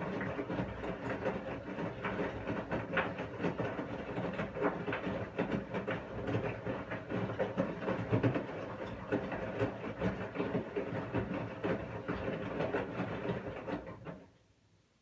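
Washing machine running: the motor hums steadily while the drum tumbles the wash with a dense rattle of small knocks and clicks. The sound stops near the end.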